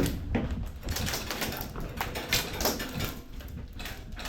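Irregular sharp clacks and knocks of airsoft guns firing and players moving during close-quarters play, several spaced unevenly with no steady rhythm.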